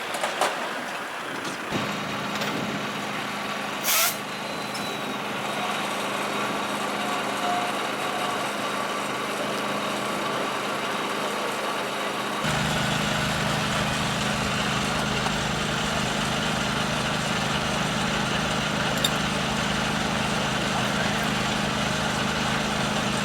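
A fire engine's diesel engine running steadily, stepping up to a louder, deeper run about halfway through. There is a short hiss about four seconds in.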